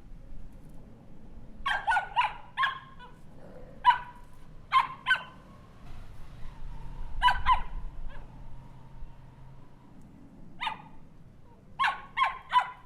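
Small dog barking in short, sharp yaps that come in quick groups of two to four, with pauses of a second or more between the groups.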